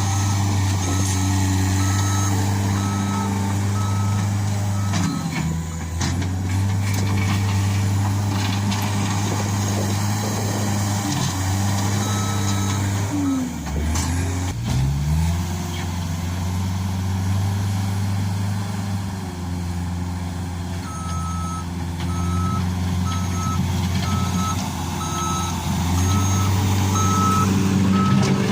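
Case SR130 skid steer loader's diesel engine running steadily while working, its engine speed dropping and picking up again about halfway through. Its reversing alarm beeps in a steady on-off rhythm at the start, briefly in the middle, and again through the last third as the machine backs up.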